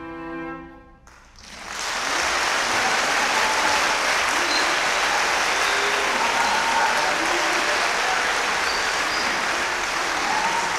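A solo cello's last bowed note dies away and stops about a second in. After a brief pause the audience breaks into steady applause.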